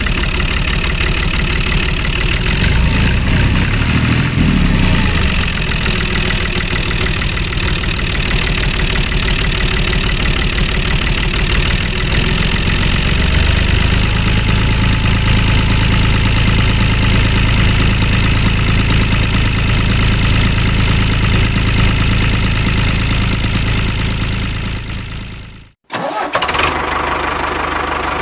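Tractor engine running, its pitch shifting about four seconds in and then settling to a steady idle. It cuts off suddenly near the end, and another engine starts up.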